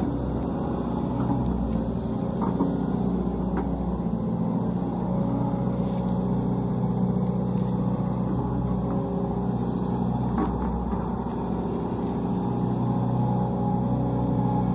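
Sumitomo SH130LF excavator's diesel engine running steadily while the boom and bucket work, digging a trench in soft soil, with a few faint clicks.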